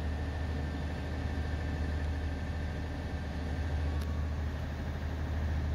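Passenger ferry's engine running with a steady low drone, over a constant rush of water and wind noise.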